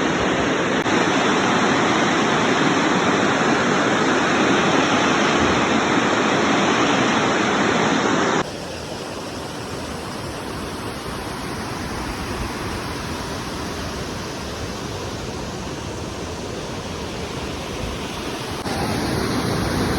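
Steady rushing of water from a waterfall, an even noise. About eight seconds in it drops suddenly to a quieter, thinner rush, and it steps up again near the end.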